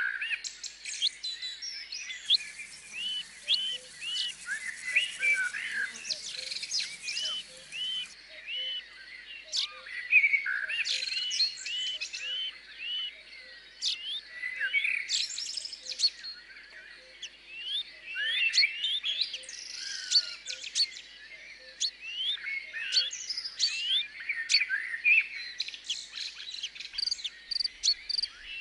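Many small birds chirping and calling at once, a dense chorus of short quick calls. A faint high hiss runs underneath for a few seconds near the start.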